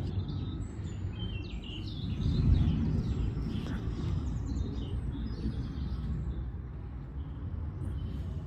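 Small birds chirping and calling, busiest in the first few seconds, over a steady low rumble.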